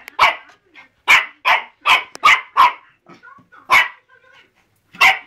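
A dog barking repeatedly in short, sharp barks: two quick ones at the start, a run of four from about a second in, then single barks near four seconds and near the end.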